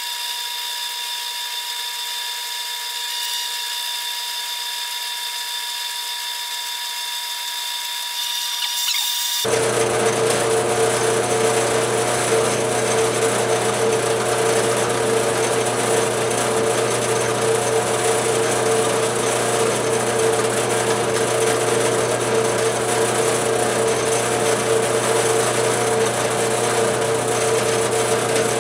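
Drill press running a 3/16-inch end mill through nylon on a homemade milling spindle, a steady machine hum with the cutter working in the cut. About nine seconds in it becomes louder and fuller.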